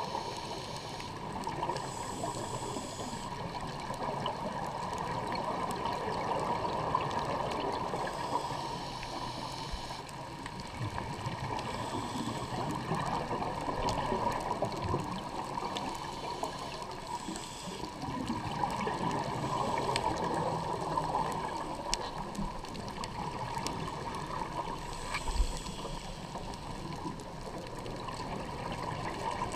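Scuba diver's regulator breathing underwater: muffled bubbling and gurgling of exhaled air that swells and fades every few seconds. There is one sharp tap near the end.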